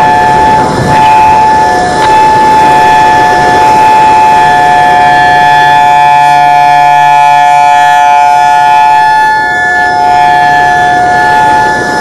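Federal Signal EOWS 612 electronic outdoor warning siren sounding its steady alert tone, a loud chord of several fixed pitches with no rise or fall. The loudness dips briefly about a second in and again near the end as the rotating speaker array turns away and back.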